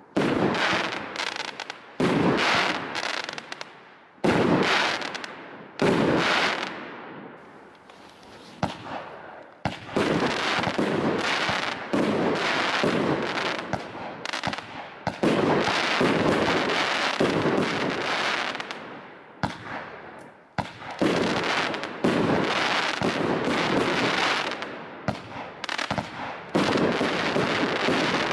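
Skycrafter Heist consumer firework cakes firing: a run of sharp shots and bursts, spaced out over the first ten seconds, then coming in near-continuous volleys with a short lull about twenty seconds in.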